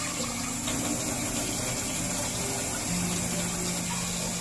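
Kitchen tap running steadily into a rice cooker pot in a stainless steel sink as rice is washed by hand.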